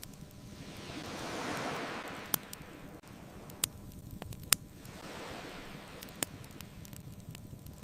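Ocean waves washing in twice, each swelling and fading away, with the sharp pops of a crackling bonfire, about four of them, the loudest a little past the middle.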